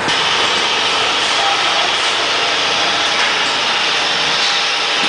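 Automatic bag-packing line running: a steady mechanical din from the belt conveyor and the bag-closing sewing machine unit, with no distinct strokes or changes.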